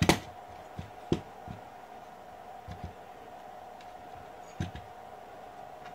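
Wire cutters snipping the excess ends off nylon cable ties: a sharp snip at the start and another about a second in, with a few lighter clicks of handling against the metal mount. A faint steady hum runs underneath.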